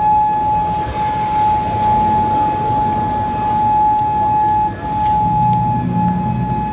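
Federal Signal Modulator 6024B electronic outdoor warning siren sounding one loud steady tone during a test, with a brief dip about three-quarters of the way through. The siren is faulty and stuck on a single tone.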